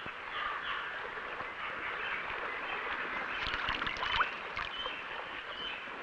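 Eurasian coot chicks begging with short, thin high peeps over a steady watery hiss, with some splashing from the feeding adults around the middle.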